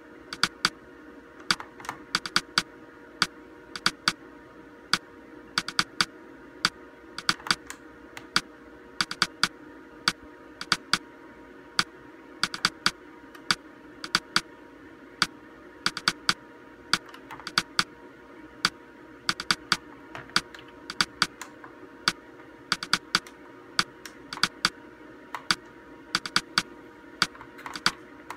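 Samsung monitor's front-panel buttons clicking under a finger, sharp irregular clicks about one to three a second, each press stepping the on-screen horizontal-position setting. A steady faint hum runs underneath.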